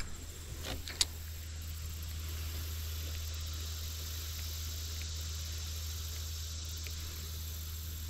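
Steady rush of creek water running over a shallow rocky riffle, with a couple of sharp clicks about a second in.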